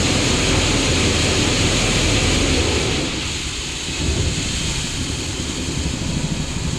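Engine running while a seed tender's auger conveys seed corn into the planter, a steady hiss of pouring seed over a low rumble. About three seconds in, the low rumble eases.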